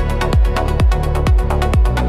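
Melodic techno track: a steady four-on-the-floor kick drum a little over twice a second, with short hi-hat ticks between the kicks over held synth chords and bass.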